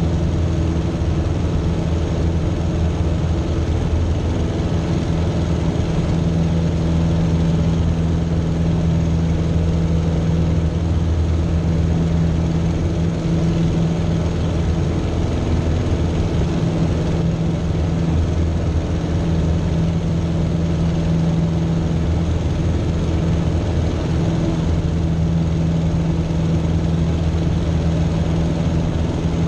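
Citabria light aircraft's piston engine and propeller running steadily in flight, a constant low drone with no change in pitch.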